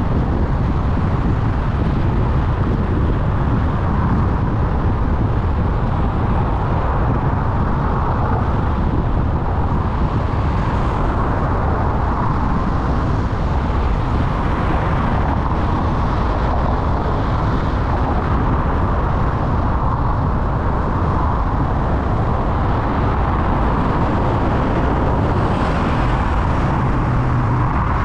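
Steady road noise from a car driving on a city road: engine and tyre noise with no sudden events.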